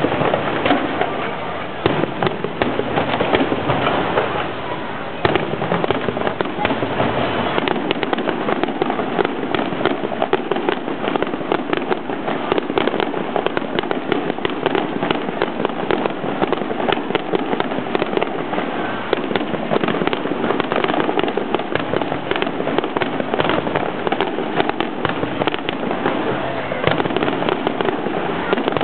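Aerial fireworks display: shells bursting one after another in a dense, unbroken run of bangs.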